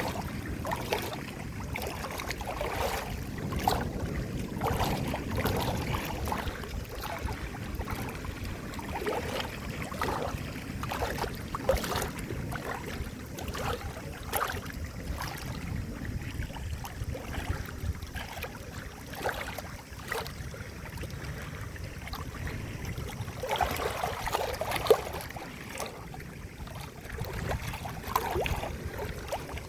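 Water gurgling and lapping, with a steady wash and frequent irregular small splashes and plops.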